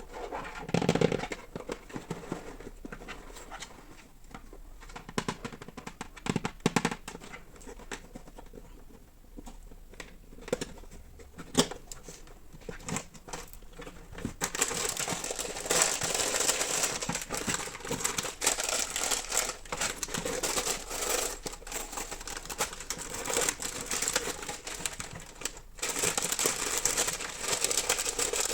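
Plastic packaging of a LOZ mini-block kit being handled and crinkled, with scattered sharp clicks and taps. From about halfway the crinkling becomes dense and continuous.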